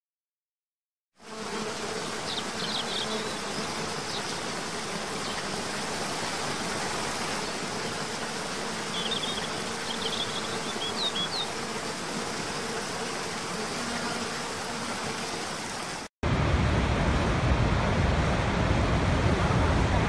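Waterfall rushing steadily, starting about a second in, with a few birds chirping briefly twice. About four seconds before the end it cuts to the louder, deeper rush of Niagara's Horseshoe Falls.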